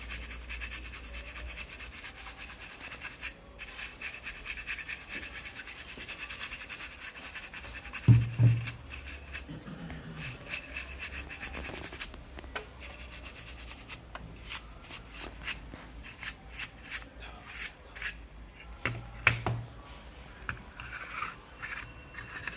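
Hand rubbing and scratching on an optical smoke detector as it is cleaned inside, with scattered small clicks and one louder knock about eight seconds in.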